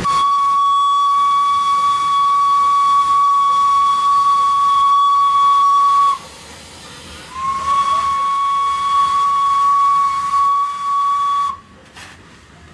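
Steam whistle of WP-class 4-6-2 steam locomotive 7161, sounding two long, steady single-note blasts with a short break between them. The first blast lasts about six seconds and the second about four.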